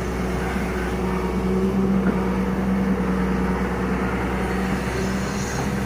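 Hyundai 210 excavator's diesel engine running steadily with a low, even hum while the boom and bucket swing.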